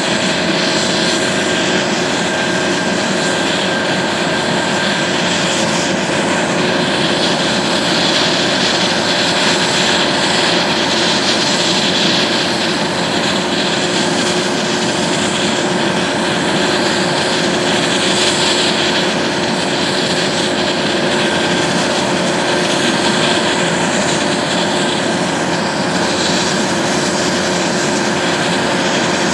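Airbus AS365 N3 Dauphin 2 helicopter running steadily on the ground, its twin Arriel turbines whining and the main rotor and Fenestron ducted tail rotor turning, with a high rushing hiss that swells and fades slowly.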